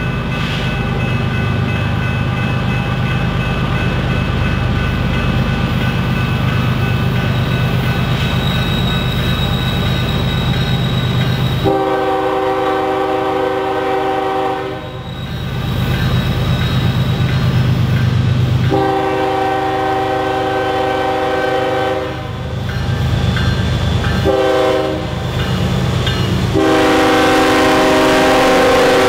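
BNSF loaded coal train led by GE ES44AC diesel locomotives approaching, the engines rumbling steadily. About twelve seconds in, the lead unit's horn sounds a chord in long, long, short, long blasts, the grade-crossing warning signal. The last blast is still sounding as the locomotives pass close by.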